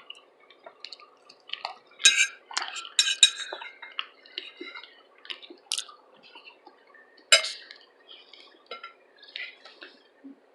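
Cutlery clinking and scraping against a dish while eating, in irregular short clicks. The loudest come about two and three seconds in and again about seven seconds in.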